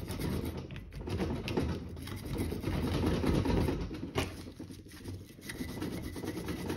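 Small wire brush scrubbing rapidly back and forth inside the pad slider slots of a rusty brake caliper bracket, scouring out dirt and rust, with a sharp tap about four seconds in.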